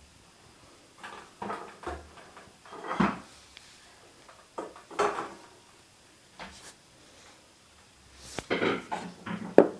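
Irregular handling noises: rubs, scrapes and a few light knocks as a rock is turned and fingered in the hands close to the microphone, busiest near the end.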